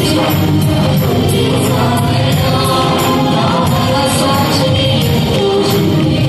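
Telugu Christian worship song performed live: women's voices singing with a band of keyboard, guitar and drum kit. Short high percussion strokes keep a steady beat about two to three times a second.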